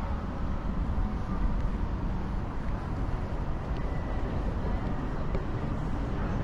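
City street ambience: a steady, uneven low rumble with a fainter hiss above it.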